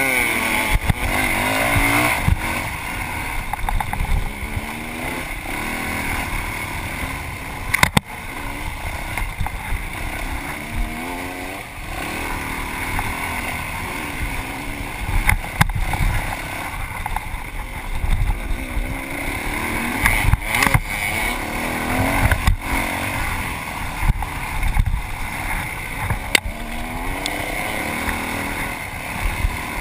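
Yamaha WR450F's single-cylinder four-stroke dirt-bike engine under race throttle, its pitch rising and falling over and over as the rider gets on and off the gas. A few sharp knocks come through along the way.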